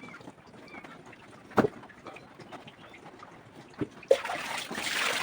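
A few sharp knocks, then about four seconds in a louder rush of running or splashing water starts.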